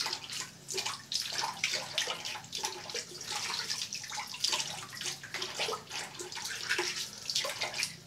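Water running from a tap and splashing unevenly, as something is rinsed under it.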